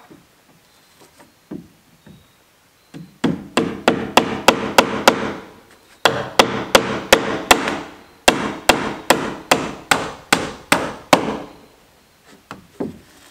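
A hammer driving nails into wooden planks: three runs of rapid blows, about four a second, with short pauses between the runs.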